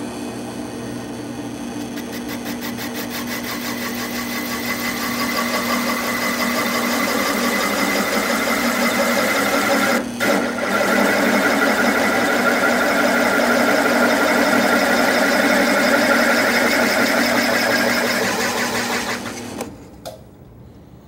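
Drill press running a wing cutter at slow speed, its single blade cutting a circle into a clamped board; a steady machine sound that grows louder over the first several seconds as the cut goes in. It breaks off briefly about halfway and stops abruptly near the end.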